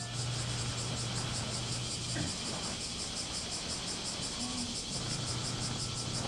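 Quiet room ambience: a steady low hum with a fast, even, high-pitched pulsing over it. The hum drops out about two seconds in and comes back about five seconds in.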